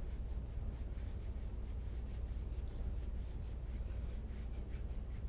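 Soft-tissue massage on a patient's back and neck: faint repeated rubbing strokes over a steady low hum.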